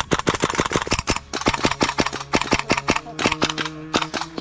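Rapid airsoft gunfire: a string of sharp cracks in quick, irregular succession, about seven a second.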